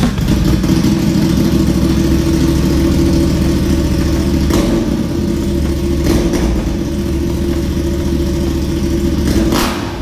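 CFMOTO 450MT's parallel-twin engine running steadily through an aftermarket exhaust, a deep, even exhaust note that holds at one speed.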